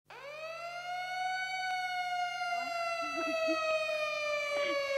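A siren wailing: one long tone that climbs quickly at the start, then slowly sinks in pitch, with faint voices underneath.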